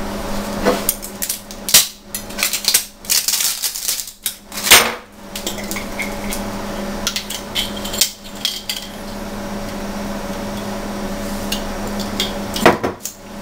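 A fresh plastic bottle of barbecue sauce being opened: clicks, knocks and clatter as the cap and seal are worked off, the loudest knock about five seconds in. A steady low hum runs underneath, and a few more knocks come near the end.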